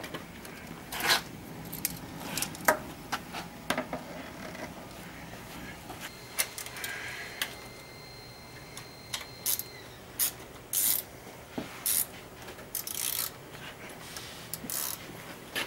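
Scattered metallic clicks, knocks and scrapes from hand work on the fairing's fork-tube clamps: a ratchet with an extension and the loosened clamps and fairing being shifted on the fork tubes. Several short runs of rapid clicking come a little past the middle.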